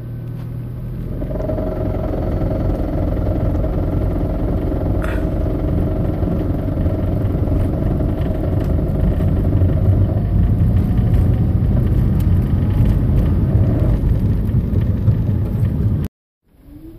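2010 Toyota Prius driving at low speed, its running noise building over the first couple of seconds and then holding steady. There is a brief sharp sound about five seconds in, and the sound cuts off abruptly about a second before the end.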